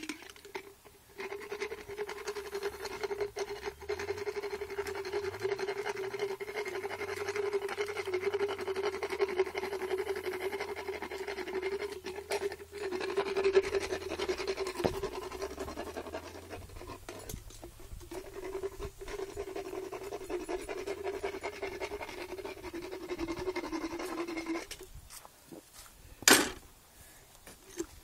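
Motorized equine dental float grinding a horse's molars: a steady motor hum with a rough grinding rasp, smoothing sharp, ragged tooth edges. It runs for over twenty seconds with a short dip partway, then stops, and a single sharp knock comes near the end.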